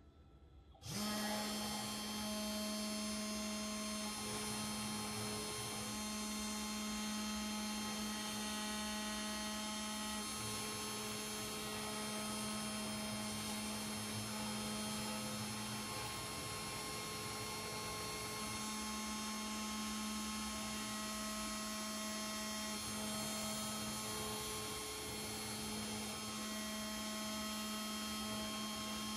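CNC 3018 Pro engraving router cutting into acrylic. Its spindle motor starts about a second in and then runs with a steady hum, while the axis stepper motors add mid-pitched tones that come and go as the engraving head moves.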